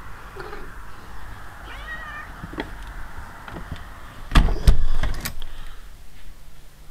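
A short cat meow about two seconds in, over a steady hiss, then a cluster of loud knocks and bumps past the middle.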